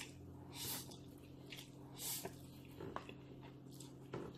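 A person slurping instant noodles off chopsticks: two long slurps, about half a second and two seconds in, with shorter slurps between and near the end.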